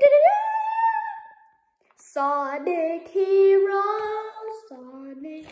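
A child's voice singing wordless, drawn-out notes: one note slides upward at the start, then after a pause of about a second come several long held notes stepping between pitches.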